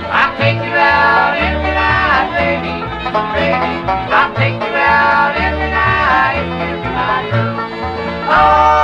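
Bluegrass string band playing: banjo picking over acoustic guitar, with an upright bass moving between low notes beneath.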